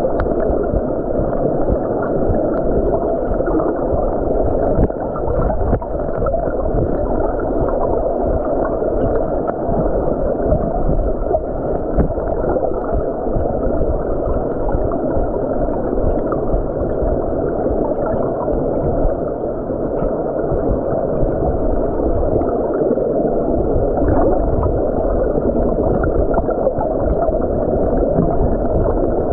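Muffled, steady rush of stream water heard through a submerged camera, with scattered small clicks.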